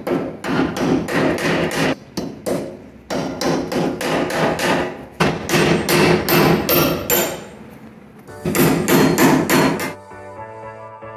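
Hammer driving a punch against a rusty truck hinge pin: quick, sharp metal-on-metal strikes, about three a second, in several runs with brief pauses, knocking the pin loose. Background music takes over near the end.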